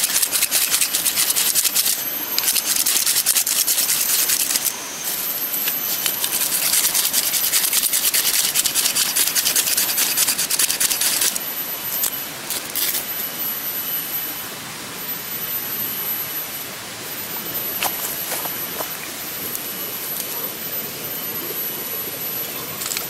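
Knife spine scraped fast and repeatedly down a ferrocerium fire-starter rod, a dense rasping run with two brief pauses, throwing sparks into tinder until it smokes. It stops about eleven seconds in, leaving a quieter steady hiss with a thin high whine and a few faint clicks.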